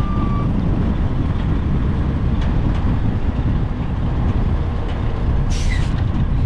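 Strong wind buffeting the microphone with a loud, constant low rumble, over heavy truck engines running. About five and a half seconds in comes a short burst of air hiss, like an air brake release.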